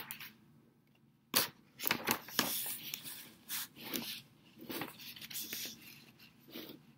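A sheet of paper rustling and crinkling in irregular bursts as it is handled close to the microphone, with a sharp knock about a second and a half in.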